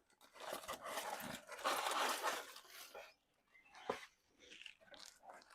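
Packaging rustling and crinkling as a parcel is unpacked by hand, followed by a single sharp click about four seconds in.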